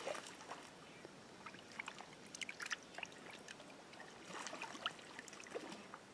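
Faint water splashing as a small hooked flathead catfish thrashes at the surface: a splash right at the start, then scattered short splashes in a couple of clusters.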